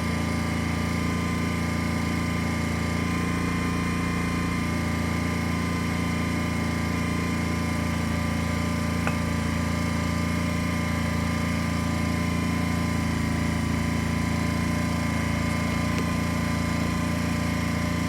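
Honda EU10i inverter generator's small four-stroke petrol engine running steadily, a constant hum with no change in speed, while it powers a battery charger.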